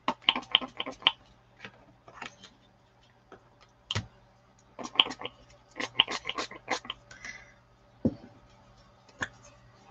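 Pump-spray bottle of Lindy's Stamp Gang ink spray being squirted onto ribbon in quick runs of several short sprays. A couple of dull knocks fall between the runs.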